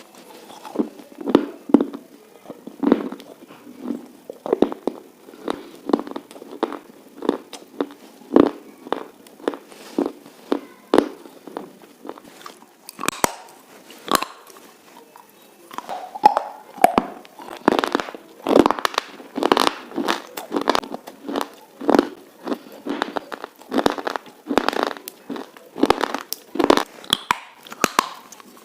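A person biting and chewing something hard and crunchy close to the microphone, with sharp crunches about one to two a second. The crunching grows louder and denser about halfway through, after a brief lull.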